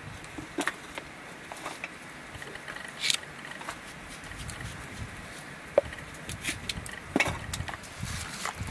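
Scattered light knocks and clicks, irregular rather than a steady chopping beat, with one sharp click about six seconds in and a duller thump about a second later, over a faint steady hiss.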